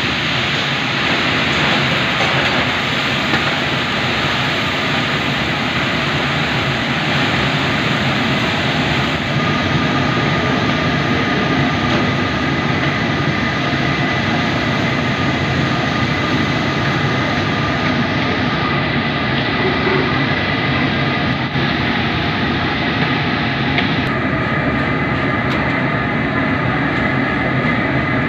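Steady roar of a commercial wok range with crabs frying in bubbling oil in the wok, a constant rushing rumble with sizzling on top.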